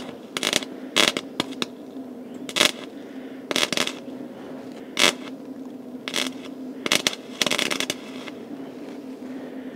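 Electric welder tacking a steel patch into a car's rusted-through floor: the arc crackles in about nine short bursts, with one longer run of nearly a second near the end, over a steady low hum.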